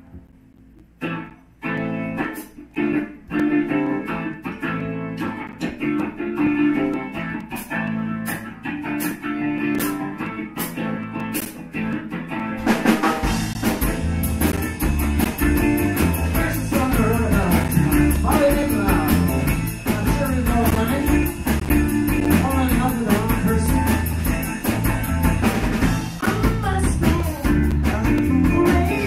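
Live band of electric guitar, bass and drums playing a song. It opens sparsely with sharp hits at a steady beat, then the full band with bass and drums comes in about 13 seconds in and gets louder.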